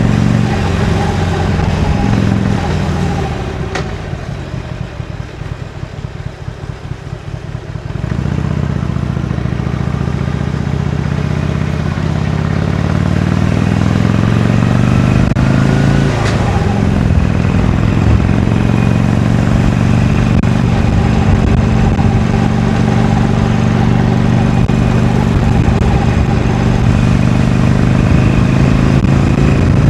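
Harley-Davidson Iron 883's 883 cc air-cooled V-twin through its stock exhaust while riding. The revs fall about two seconds in as the throttle closes, leaving a quieter, pulsing beat. About eight seconds in the engine picks up and pulls upward, drops briefly at a gear change near halfway, then runs on steadily.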